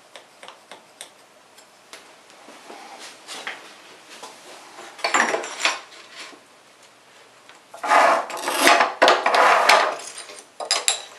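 Ceramic tile being handled and worked on a manual rail tile cutter: light taps and ticks at first, then loud scraping and clattering of tile against the cutter's metal bed and rails in the second half.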